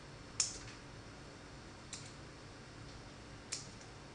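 Three light, sharp clicks, the first the loudest, as pieces of bread drop one by one into an empty plastic blender jar.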